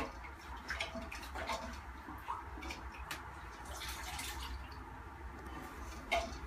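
Rag wiping out the wet inside of a drained toilet tank: soft rubbing with scattered small knocks.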